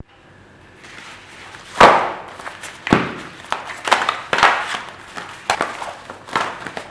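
A pouch of booklets set down on a hard table with a thud about two seconds in, then paper booklets and sheets rustling and slapping as they are pulled out and handled.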